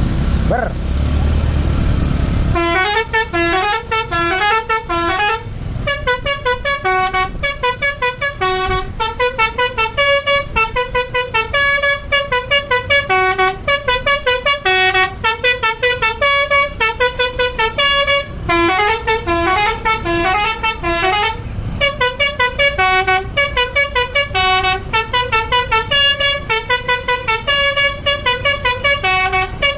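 Bus engine rumbling at idle, then about two and a half seconds in a Basuri telolet horn, the Indonesian multi-tone musical bus horn, starts playing. It plays rapid runs of short notes that step up and down like a tune, repeated over and over with brief pauses.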